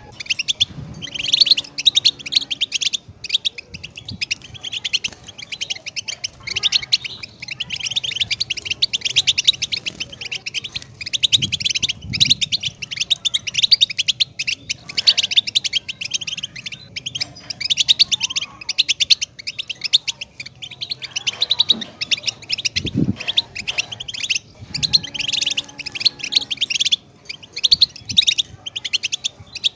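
European goldfinch singing: a long, fast, twittering song of rapid high notes that keeps going, broken only by brief pauses.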